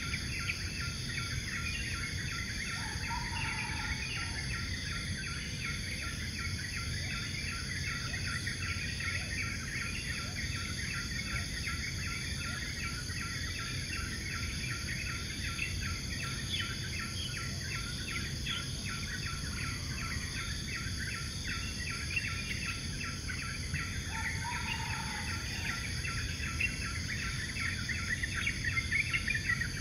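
Tropical forest chorus of insects and birds: a dense, steady stream of rapid chirps under a continuous high buzz, with a short lower bird call about 3 seconds in and another near 24 seconds.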